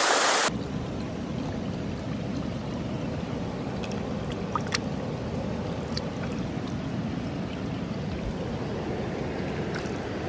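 Rushing stream rapids for the first half second, then, after a sudden drop, a steadier low rush of water in the shallows with a few faint clicks and taps as a hand moves in the water.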